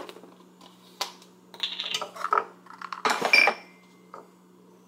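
Knocks and clatter of kitchen items handled on a countertop, a goat's milk carton and a plastic measuring cup: a sharp knock about a second in, then two short clatters, the second one louder.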